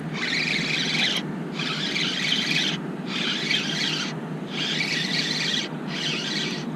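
Fishing reel cranked in repeated bursts of about a second each with brief pauses between them, a raspy whirring, as a fish is reeled in.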